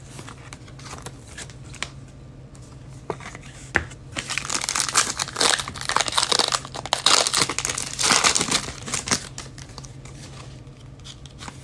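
Wrappers of Panini Donruss Optic football card packs crinkling and tearing as they are ripped open by hand, with a dense burst of crackling from about four seconds in until near the end.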